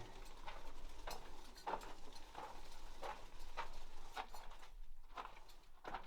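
Footsteps on the rocky floor of a mine tunnel, a walking pace of roughly three steps every two seconds, each step a short crunch that echoes slightly in the tunnel.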